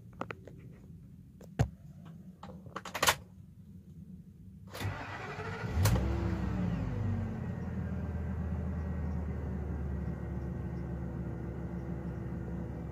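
A few sharp clicks, then the Ford F450's 6.8-litre V10 gasoline engine cranks for about a second, catches with a brief rev that falls away, and settles into a steady idle, heard from inside the cab.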